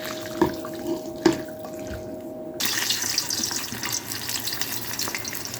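Tap water running into a kitchen sink. A few sharp knocks and a steady hum come first; about two and a half seconds in, the sound switches to a louder, even rush of running water.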